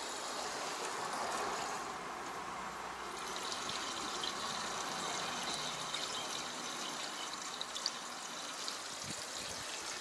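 Diesel fuel pouring steadily into a tractor's fuel tank during refuelling, a continuous liquid rush.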